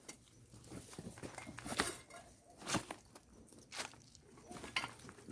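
Footsteps and scuffs on rocky, gritty ground while climbing down a slope, a sharp crunch about once a second.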